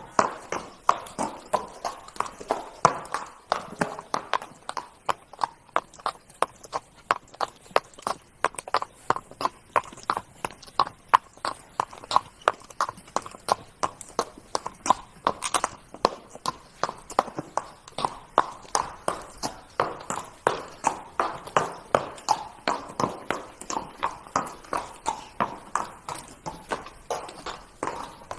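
Hooves of a trotting horse: a steady, even clip-clop of several beats a second.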